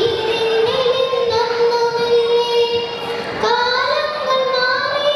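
A young girl singing a Malayalam poem (kavitha) into a handheld microphone, holding long, steady notes. One phrase ends about three seconds in, and the next begins with a short rise in pitch before settling on another long note.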